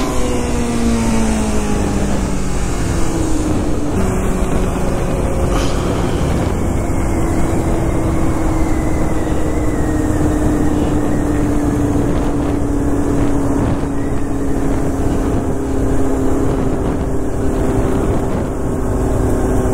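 Sport motorcycle riding at speed, heard from the rider's helmet: the engine note falls for the first few seconds, changes about four seconds in, then holds a steady drone that slowly eases lower. Heavy wind rush over the microphone runs under it throughout.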